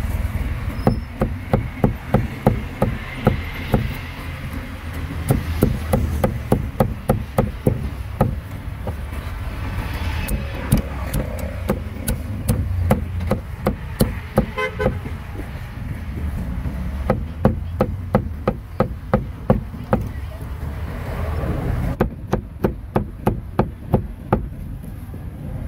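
Cleaver chopping grilled meat, in runs of quick sharp strokes several a second, with short pauses between the runs.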